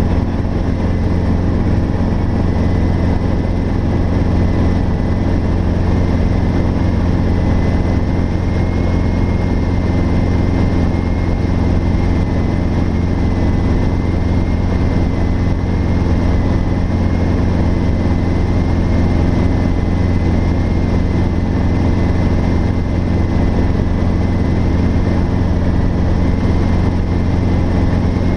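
Steady cabin noise of a Robinson R22 helicopter in flight: its Lycoming four-cylinder piston engine and rotors running evenly as a deep hum, with a thin high whine over it.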